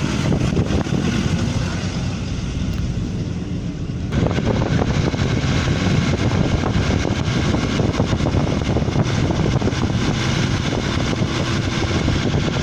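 A 4x4 vehicle on the move: engine and tyre noise mixed with wind buffeting the microphone, a dense, steady rumble that grows abruptly louder and fuller about four seconds in.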